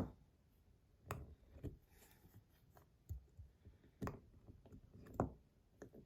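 Scattered small clicks and taps, about seven in six seconds with quiet between them, as plastic strong-magnet inserts are fitted into a stainless steel Rapt fidget slider.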